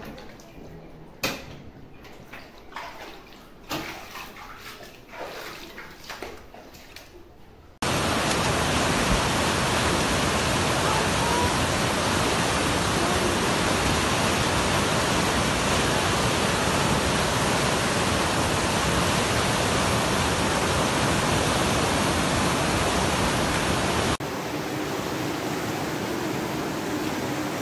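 Flash floodwater. First a quieter stretch of water moving over a flooded floor, with scattered clicks and knocks. Then, about eight seconds in, the loud steady rush of a swollen brown torrent. This drops to a softer steady hiss near the end.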